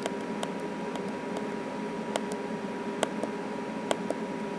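Steady hum and hiss with a faint high steady tone, broken by about ten short sharp clicks at uneven intervals.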